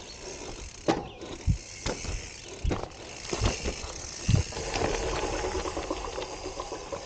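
Gravel bike jolting over roots and logs on a dirt trail: a series of dull thumps with the frame and gear rattling, and the rear hub's freewheel clicking in between.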